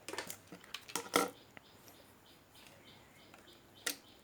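A few sharp clicks and knocks from hands handling small parts and tools, with a faint run of short, evenly spaced high chirps in between.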